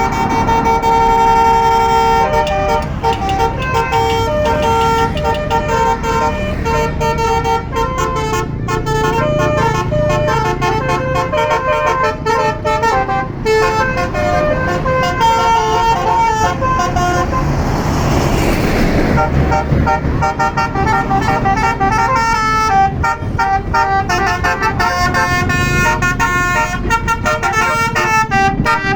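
Tour bus Basuri 'telolet' multi-tone horn playing tunes of quickly changing notes over the bus's engine rumble. About two-thirds of the way in, a rushing noise swells and fades beneath the horn.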